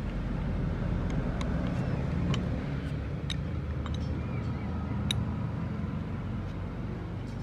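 Steady low rumble of an engine running in the background, with scattered light metallic clicks and taps as the vacuum pump's rear cover is pressed onto its housing by hand.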